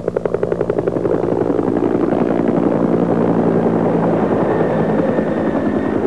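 A loud sustained drone with a fast chopping pulse at the start that evens out after about a second into a steady sound.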